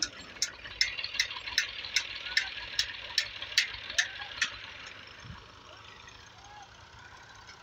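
Regular sharp ticking, about two and a half ticks a second, over a faint hiss. The ticking stops about four and a half seconds in, and a few faint short chirps sound above the hiss.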